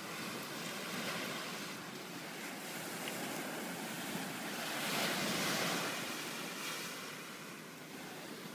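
Sea surf washing onto a beach, a steady rush that swells to its loudest about halfway through, as a wave comes in, then eases.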